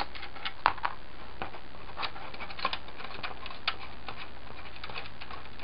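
Irregular light clicks and taps of stiff white plastic armor parts being handled and fitted together, an end cap pressed against the curved detonator piece. The sharpest click comes about two-thirds of a second in, over a steady low background hum.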